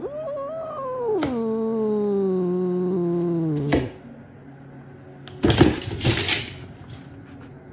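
A cat giving one long drawn-out yowl lasting nearly four seconds, its pitch sliding down toward the end. A couple of short noisy bursts follow about five and a half seconds in.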